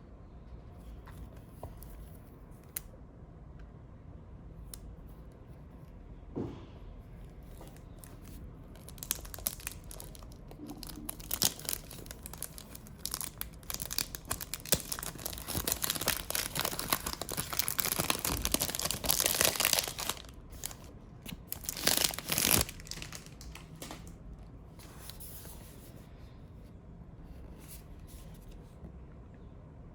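Packaging being torn open and crinkled by hand: scattered light clicks and rustles at first, then dense crackling and tearing from about nine to twenty seconds in, with one more short burst a little after.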